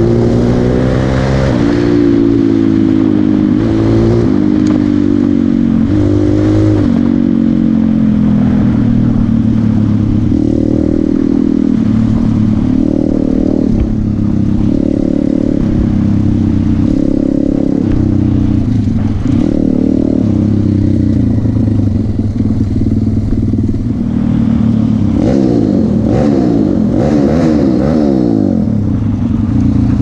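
WPB 190 Beast pit bike's 190cc single-cylinder engine running under way, heard from on the bike, its note climbing and dropping again and again as the throttle is opened and closed. About three-quarters of the way through the note wavers quickly.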